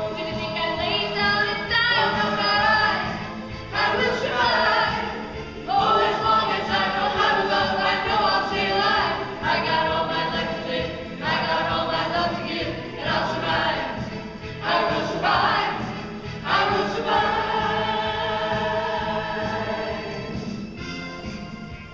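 Music: a pop song sung by several voices together over a backing track.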